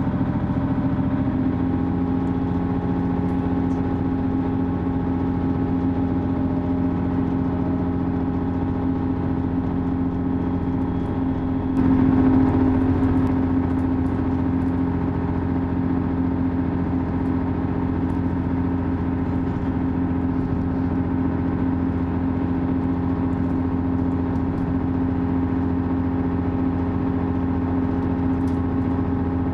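Inside the passenger saloon of a Class 158 diesel multiple unit running at speed: a steady hum from the underfloor diesel engine, several even tones, over rumbling wheel and rail noise. About twelve seconds in the noise briefly grows louder for a second or two, then settles.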